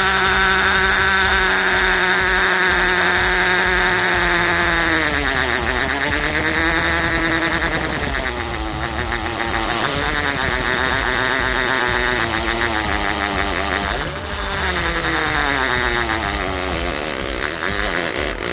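Tool n Tool GTC-HD18V cordless 18V hammer drill in its second-speed setting, its motor whining as it drills into a concrete paving block. The pitch is steady at first, then drops about five seconds in and keeps sagging and wavering: the drill is bogging down under load, and the owner says it stalled in second speed.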